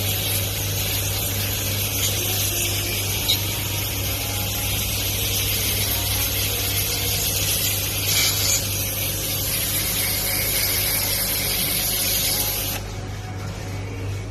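Steady hiss of a cleaning spray on a heat pump unit during servicing, stopping abruptly near the end, over a steady low hum.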